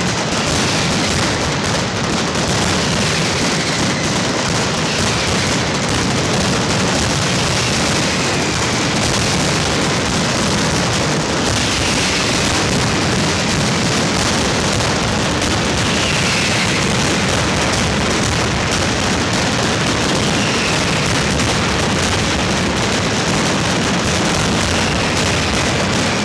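Mascletà firecrackers going off in a dense, unbroken rattle of bangs at ground level, with a few falling whistles heard over it every few seconds.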